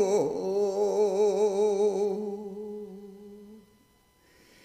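A cantor's solo male voice in Jewish liturgical chant holds a long note with a wide, even vibrato at the end of a phrase. The note fades away after about three and a half seconds, leaving near silence.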